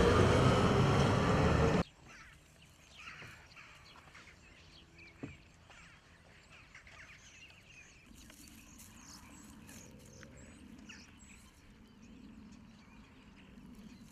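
A loud, steady rushing noise that cuts off suddenly about two seconds in, followed by faint outdoor ambience with scattered small bird-like chirps.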